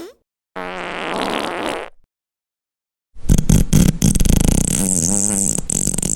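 Two farts with a short silent gap between them: a buzzy one lasting about a second and a half, then a longer one starting about three seconds in, its pitch wobbling as it goes.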